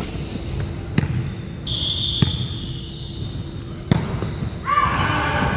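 Volleyball rally: four sharp ball hits a second or so apart, a high squeal in the middle, and voices rising near the end.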